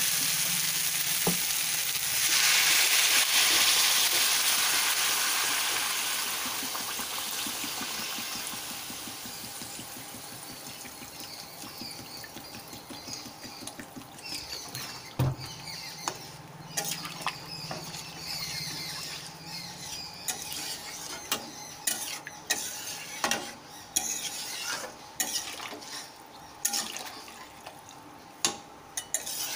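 Water poured into a hot kadai of oily, spiced fried potatoes for an egg curry sizzles loudly. The hiss swells about two seconds in and dies away over the next several seconds. In the second half a metal spatula clinks and scrapes against the pan as the watery curry is stirred.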